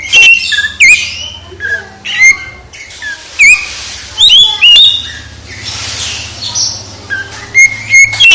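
Oriental magpie-robin (kacer) singing: loud, varied phrases of sharp whistled notes and quick rising and falling chirps with short pauses between them, over a faint steady low hum. It is the kind of loud song used to rouse a moulting, silent magpie-robin into singing again.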